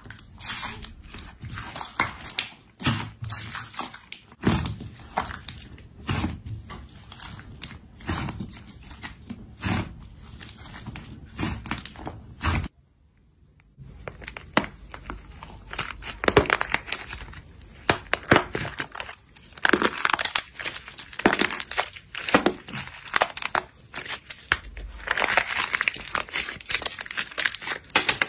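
A hand squishing and pressing slime: first a pink slime under a white foamy crust, giving soft squelches and crackles about once a second. After a short silence about thirteen seconds in, a stiff green slime is squeezed and torn apart, crackling and crunching more densely as its dry outer layer breaks into flakes.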